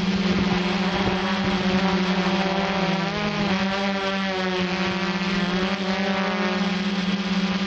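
Electric motors and propellers of a radio-controlled quadcopter running steadily with a pitched hum, the pitch shifting up and down a few times near the middle as the throttle changes.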